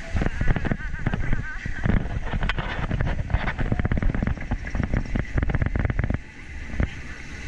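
Log flume boat and track rattling and clattering in quick, irregular clicks over a low rumble as the boat tops the lift and runs into the water trough; the clatter eases off about six seconds in.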